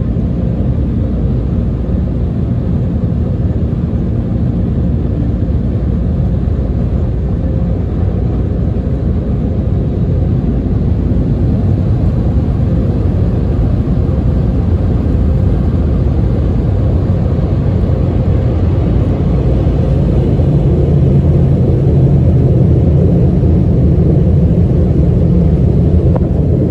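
Touch-free car wash dryer blowers on a Belanger Kondor running during the drying cycle, a steady loud rush of air heard from inside the car as it blows water off the windshield. It grows a little louder in the second half.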